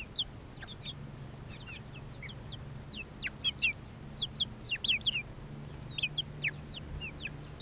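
Young Polish bantam chickens, about two and a half months old, peeping: many short, high, falling notes in quick, irregular succession, thickest around the middle.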